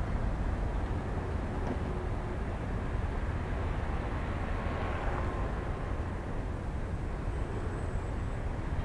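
Outdoor ambience: a steady low rumble and hiss, swelling a little about halfway through.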